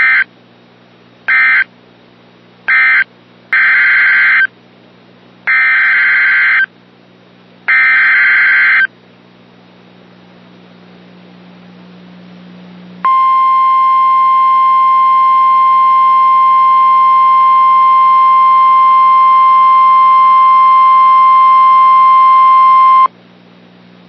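Emergency Alert System SAME data bursts: three short bursts of warbling digital tone, like the end-of-message code, then three longer ones, like the header of the next alert. After a pause of a few seconds comes a long, steady, loud alert attention tone lasting about ten seconds, which cuts off suddenly.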